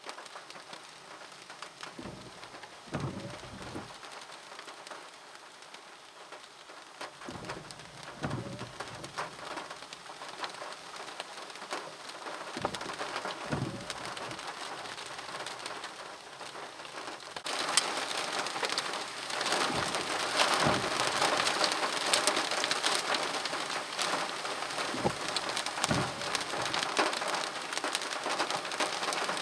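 Rain hitting a car's windshield, heard from inside the cabin, growing heavier about two-thirds of the way in. The windshield wipers sweep across every few seconds, each pass a short low thud out and back.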